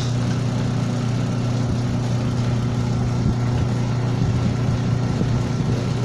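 Washing machine's electric motor running with a loud, steady mains hum.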